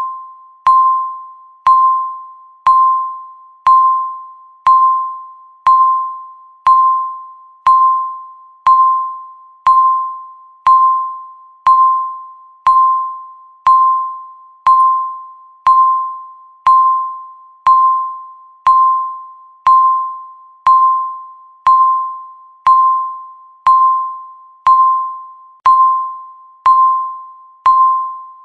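Countdown timer beep, struck once every second: a single steady-pitched tone with a sharp start that fades away just before the next one, each beep marking one second left on the timer.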